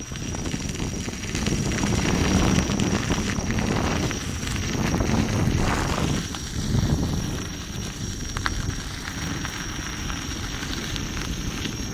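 Gotway MSuper3 electric unicycle riding along a gravel path: the tyre rolling over the gravel under a steady rush of wind buffeting the microphone, swelling and easing with the ride.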